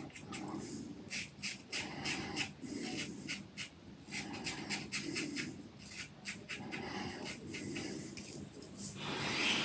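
Yaqi Slope stainless-steel slant safety razor scraping through three-day stubble against the grain, in quick series of short, crisp strokes with brief pauses between. About nine seconds in, a steadier hiss sets in.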